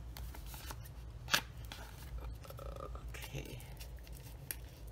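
Paper envelopes being handled and shuffled on a craft mat, with soft rustles and clicks and one sharp click about a second and a half in.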